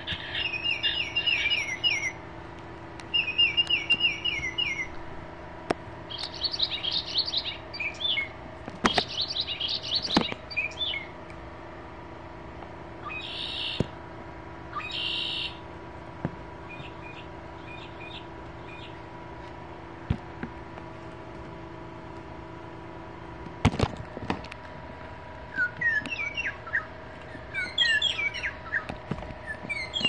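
Recorded bird songs and calls from the built-in sound boxes of Wild Republic Audubon plush birds, pressed one after another: several separate bursts a second or two long, then a series of chirps near the end. A few sharp knocks from handling the toys come in between.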